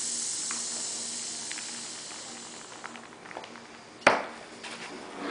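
Air hissing out of the release valve of an inflatable cervical traction collar as it is deflated, the hiss fading away over the first two seconds or so. A few small clicks follow, then a sharp knock and rustle of the collar being handled about four seconds in.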